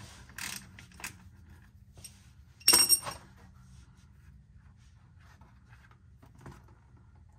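Ratchet and hand work loosening the drain plug of a BorgWarner 4464 transfer case: a few light clicks, then one sharp metallic clatter that rings briefly about three seconds in, followed by faint scattered ticks. A low steady hum runs underneath.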